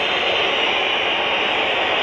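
Stadium crowd noise: a steady, dense din of thousands of football fans in the stands, with no clear chant or rhythm.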